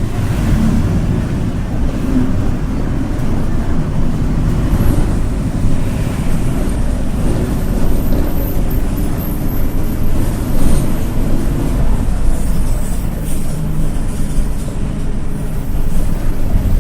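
Mercedes-Benz bus running at high speed, its wheels giving off a low hum over a steady road rumble. The hum is a typical wheel-bearing problem, harmless to the bus.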